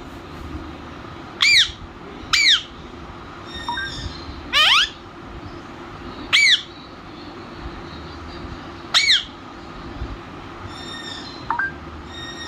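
Pet parrot giving a series of short, sharp squawking calls spaced one to two seconds apart, with one longer rising call about four and a half seconds in.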